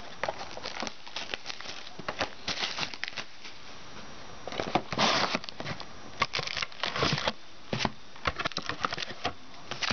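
Plastic wrapping and foil trading-card packs crinkling and rustling as a sealed card box is opened and the packs are taken out. Irregular crackles throughout, with louder rustles about five and seven seconds in.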